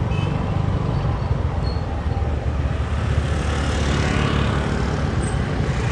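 Motorbike in motion: a steady low rumble of engine and wind buffeting the handlebar-mounted camera's microphone, with road and traffic noise around it.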